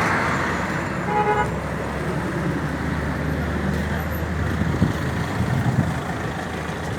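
Steady rushing noise of a river in flood, the water running fast. A short horn toot sounds about a second in.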